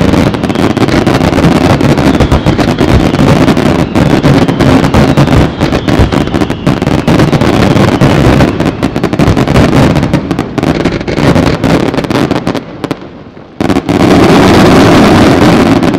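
Fireworks finale: a dense, continuous barrage of aerial shell bursts and crackling, with many rapid bangs on top of one another. The barrage thins and drops out briefly about thirteen seconds in, then comes back loud for the last couple of seconds.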